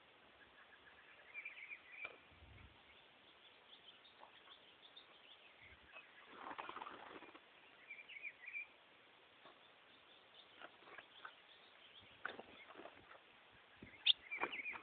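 Caged azulão (ultramarine grosbeak) giving short, faint chirping calls in a few brief clusters, with a rustle of movement in the cage about halfway through and a few small clicks near the end.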